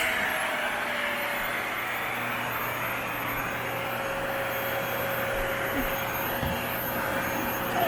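Panasonic paper-bag canister vacuum cleaner running steadily, a steady whine over the rush of air.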